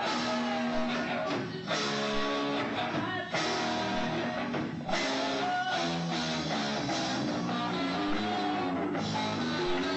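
A rock band playing live, with strummed guitar to the fore.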